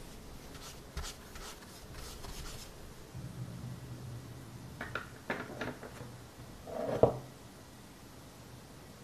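Soft brushing strokes of a makeup brush dabbing eyeshadow onto a textured surface. Later come a few light clicks and a thump about seven seconds in.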